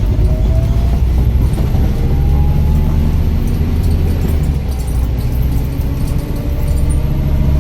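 Heavy road vehicle's engine running with a steady low rumble, with a faint whine that rises slowly in pitch now and then.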